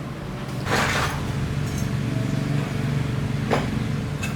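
A motor running steadily with a low hum, with a few short noisy scrapes or hisses over it, about a second in and again near the end.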